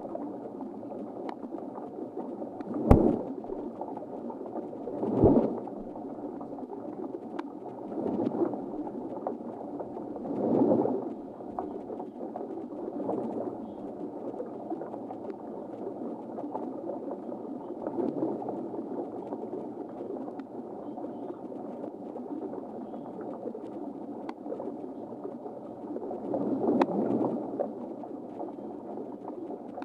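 Underwater drone's electric thrusters whirring steadily, swelling louder several times as they speed up to manoeuvre, with two sharp knocks, about three and five seconds in.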